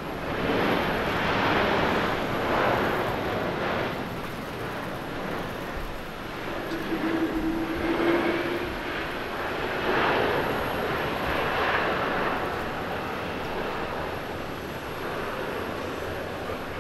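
Boeing 777 jet engines running loud during the landing rollout on a wet runway, swelling and easing in two big surges, with a brief steady hum about seven seconds in.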